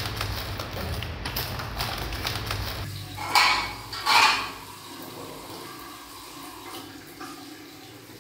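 Water running from a bathroom faucet into a ceramic sink, with two loud splashing surges about three and four seconds in, then a steady stream as a cloth is rinsed under it. A low rumbling noise fills the first few seconds before the water.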